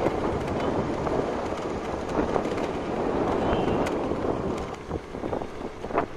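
Wind rushing over the microphone of a camera riding on a moving vehicle, with the ride's running and road noise underneath. It eases about five seconds in.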